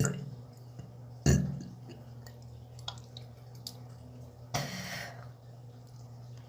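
Burps: one right at the start and a louder one about a second in, then a short breathy rasp near the end, over a steady low hum.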